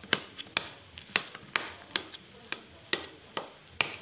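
Steel spoon clinking and knocking against a perforated stainless steel bowl while breaking up boiled bitter gourd pieces, about two sharp clinks a second.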